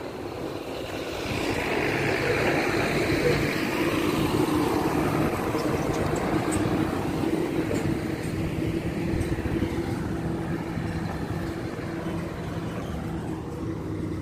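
Street traffic: motor vehicles passing on the road, a steady engine hum under tyre noise that swells a second or two in and eases off later.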